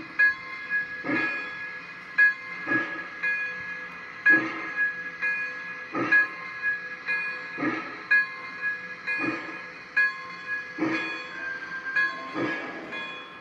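Lionel Legacy Berkshire model steam locomotive's sound system playing slow, even steam chuffs as the engine creeps forward, some chuffs louder than others, over a steady high whine.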